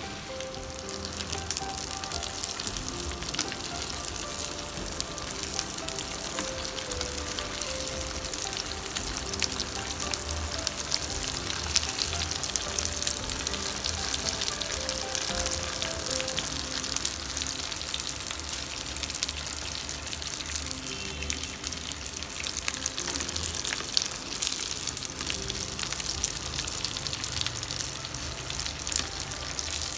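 Tofu skin deep-frying in a pan of hot oil, a dense sizzle and crackle that gets louder about a second in, with pieces turned and lifted out with chopsticks.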